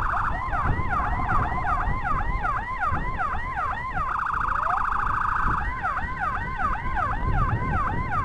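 Escort motorcycle's electronic siren, kept on to clear the way for an ambulance that has no siren of its own. It sounds a fast rising-and-falling yelp, switches about four seconds in to a rapid buzzing warble for a second and a half, then to a steady high tone near the end, over road and engine rumble.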